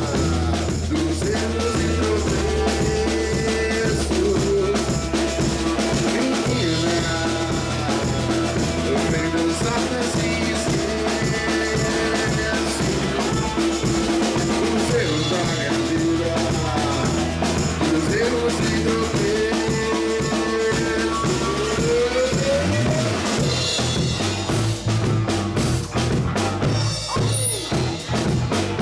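Live funk band playing an instrumental groove: a drum kit beat under a steady bass line and held melodic lines. Near the end the playing turns choppier, with short gaps.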